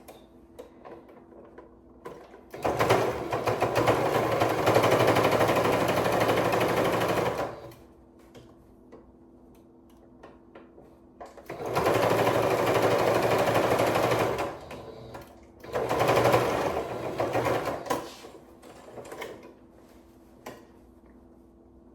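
Sewing machine stitching in three runs: about five seconds from roughly two and a half seconds in, then two shorter runs of about three and two seconds, with quiet fabric handling in the pauses between.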